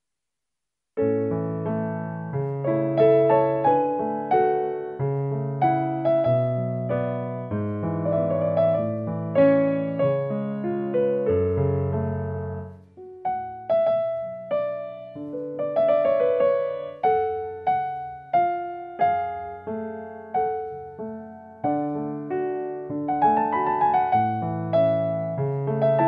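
Background piano music, a gentle run of struck notes that begins about a second in after a brief silence.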